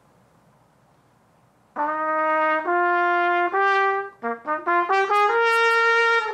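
Solo trumpet starting about two seconds in, playing a rising line: three held notes stepping upward, a quick run of short notes, then a long high held note.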